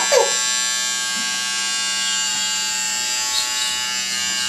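Electric hair clipper buzzing steadily as it cuts a baby's hair.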